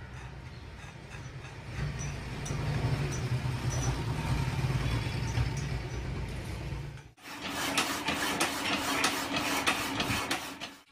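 Steady low hum of workshop machinery. About seven seconds in it gives way to a power hacksaw running, a steady motor hum with quick, evenly repeating rasping strokes as the blade cuts through round steel bar.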